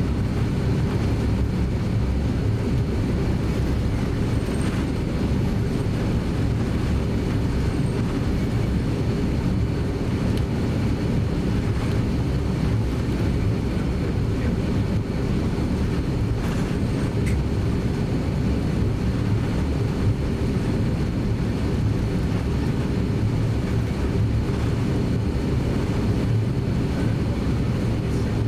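Cabin noise inside an Airbus A330-300 airliner taxiing: a steady low rumble of the engines at taxi power and the aircraft rolling along the taxiway, unchanging throughout.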